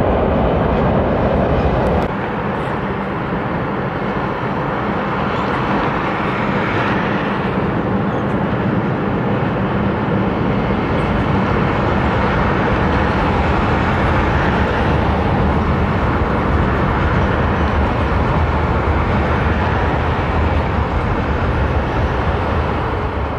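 Seoul Subway Line 4 train rolling across a steel arch bridge, mixed with road traffic on the bridge. A steady rumble and hiss, with an abrupt drop in level about two seconds in.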